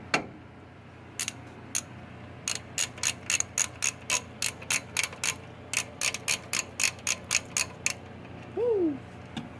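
Socket ratchet clicking as it is swung back and forth to run out a loosened wheel hub mounting bolt, about three to four clicks a second. A short squeak comes near the end.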